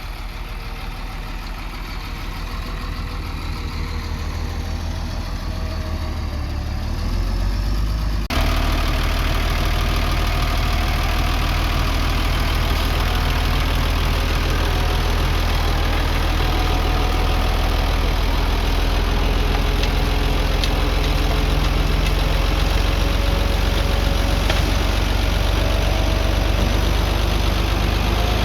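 Diesel engine of earth-moving machinery running steadily, growing louder over the first several seconds, then jumping suddenly louder about eight seconds in and holding steady.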